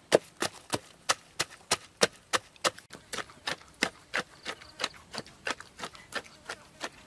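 Wooden pestle pounding fresh red chilies, garlic and salt in a wooden mortar into a spice paste: steady knocks about three times a second.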